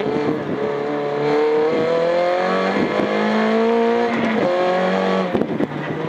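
Rally car engine heard from inside the cabin, working hard through a chicane: the pitch rises as it accelerates, drops back briefly a few times and climbs again.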